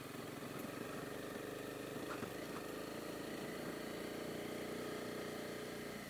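Honda CB250R's single-cylinder engine running at low, steady revs as the motorcycle climbs a rough forest road, with a couple of light knocks about two seconds in.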